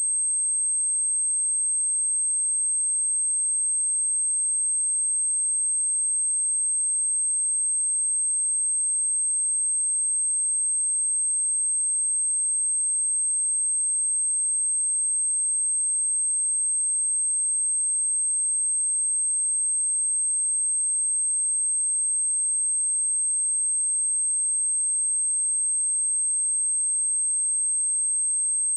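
A steady, high-pitched, pure 8366 Hz sine-wave test tone, held at one pitch and level throughout, played as a speaker test and speaker-cleaning tone.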